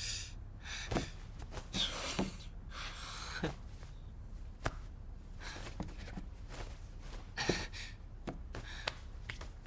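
Faint movement sounds: scattered soft taps and knocks with rustling, and a couple of short breathy swells about two seconds in and again about seven and a half seconds in.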